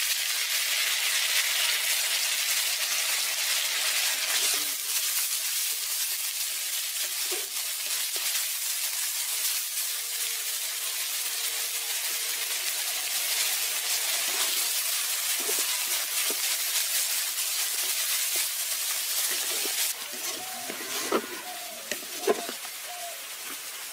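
Chopped onions sizzling in hot oil with cumin seeds in a kadai: a sudden burst of sizzling as they go in, then steady frying. The sizzle softens a little near the end, when a wooden spatula stirs and scrapes against the pan a few times.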